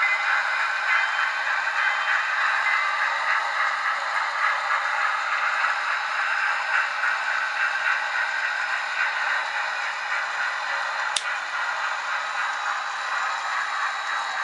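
Blackstone HOn3 model freight train hauled by a K-27 steam locomotive running along the layout track: a steady rolling, rattling noise. There is one sharp click about three-quarters of the way through.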